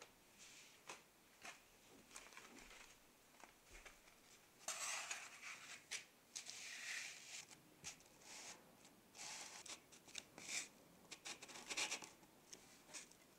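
Faint handling sounds: scattered light taps and clicks with short rustling scrapes as a miniature dollhouse and its grass-covered base boards are moved and slid into place on a wooden tabletop. They grow busier from about five seconds in.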